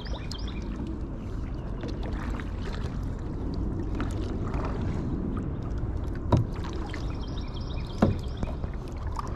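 Kayak being paddled on a pond: water sounds from the paddling over a steady low noise, with two sharp knocks about six and eight seconds in.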